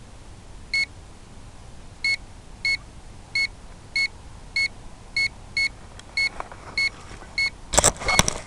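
Electronic beeper sounding short, even-pitched beeps about every 0.6 seconds, with a burst of crackling clicks near the end.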